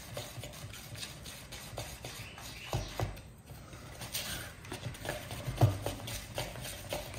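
A stir stick scraping and knocking around a plastic mixing cup as it works a thickened casting mix, Matrix Dryve, toward a peanut-butter consistency: an uneven run of scrapes with a few sharper taps.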